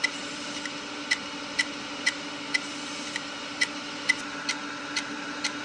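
Opened, faulty hard drive running with its cover off: a steady hum of the spinning drive with a sharp click about twice a second.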